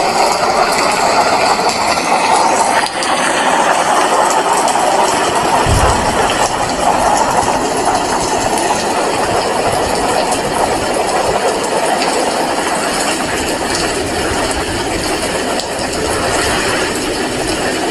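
Heavy rain falling steadily, an even hiss. A brief low thump about six seconds in.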